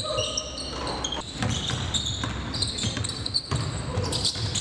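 A basketball bouncing on a hardwood gym floor. Sneakers squeak sharply and repeatedly on the court during live play.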